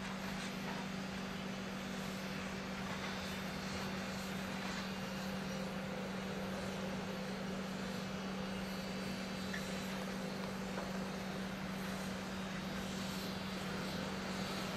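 Bell B30E articulated dump truck's diesel engine running as the truck drives across the site and manoeuvres, a steady drone at one unchanging pitch with heavy-machinery noise all around.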